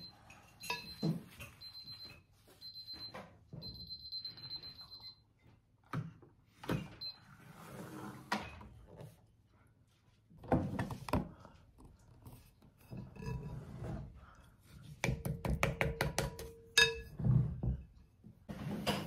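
Digital kitchen timer beeping at zero, the time limit reached: high beeps in short groups, then a longer rapid run that stops about five seconds in. After it come scattered knocks and clunks of the large earthenware bowl and wooden spoon being handled on a wooden table, with a quick cluster of clatters near the end.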